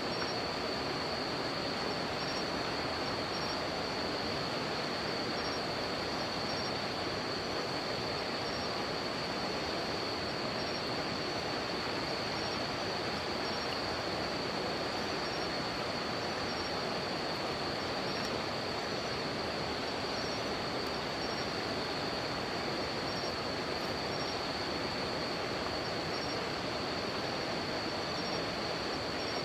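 A river flowing with a steady rushing noise, under a continuous high-pitched insect trill, with a second insect chirping in short notes about once a second.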